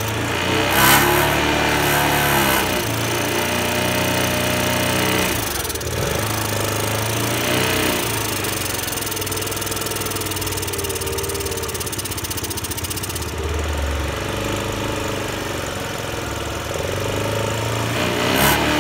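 Honda Today scooter's 50cc four-stroke single-cylinder engine running and revved up and down by the throttle while engine conditioner is sprayed into the carburettor intake, hissing in bursts. The engine runs poorly and won't rev freely, put down to carbon build-up.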